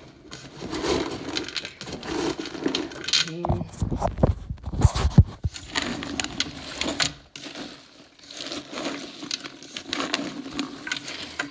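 Chopped vegetables being mixed by hand in a container: an uneven rustling and scraping, with a cluster of knocks about four to five seconds in.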